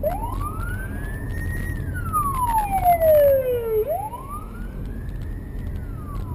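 Police car siren wailing: a tone that rises slowly in pitch and then falls, going through about one and a half cycles. Underneath is the steady low rumble of road and engine noise from a moving car.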